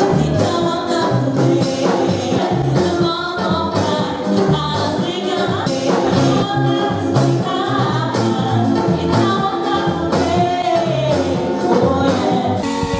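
Background music: an upbeat song with a lead vocal over a steady beat.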